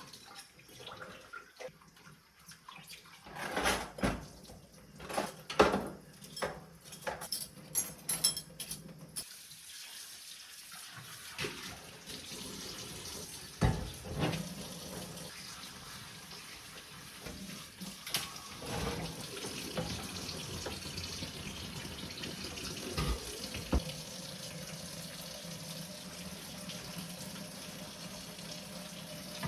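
Water running from a tap into a sink, starting about nine seconds in and then running steadily, with a series of knocks and clinks, like dishes being handled, before and now and then during it.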